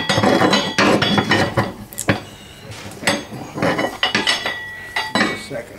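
Steel pry bar knocking and clinking against the front suspension arm and a jack saddle: a run of sharp metallic knocks with a brief ring, busiest in the first half.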